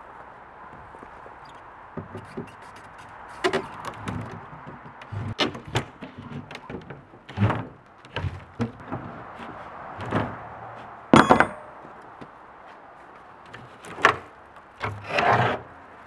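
Plywood shipping crate lid being pried and worked loose: a run of irregular wooden knocks, creaks and scrapes. About eleven seconds in there is one sharp, ringing metallic clank, and near the end a longer scrape as the lid is dragged.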